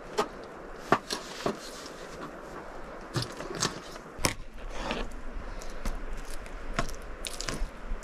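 A knife cutting a fresh pink salmon into steaks through the bone: irregular sharp knocks and crunchy cuts against the board.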